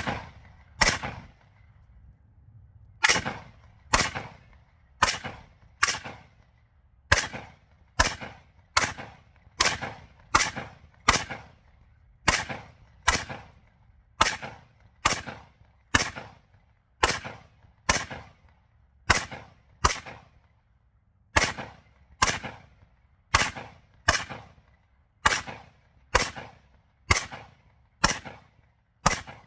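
AR-15 rifle firing .223 in steady semi-automatic fire: about thirty single shots, roughly one a second, each a sharp crack with a short ringing tail.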